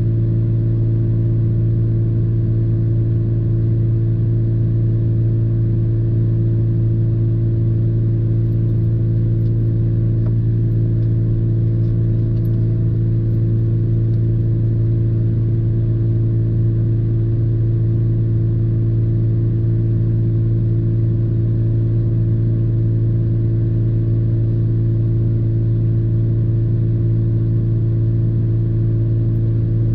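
Steady low hum of the parked truck's engine idling, heard from inside the cab, unchanging throughout.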